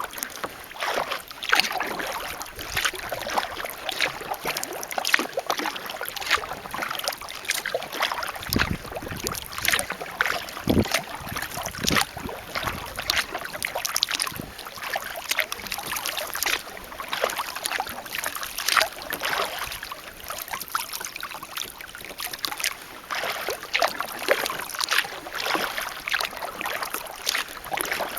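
Kayak paddle strokes dipping and splashing in calm water, with water dripping off the blades in a steady run of small splashes. A couple of low thumps come about nine and eleven seconds in.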